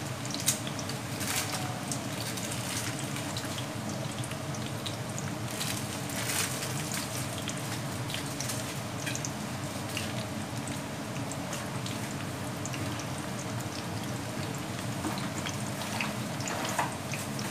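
Hot oil in a kadai sizzling and bubbling steadily as sliced onions and curry leaves fry in it for a tadka (tempering), with scattered small pops and crackles.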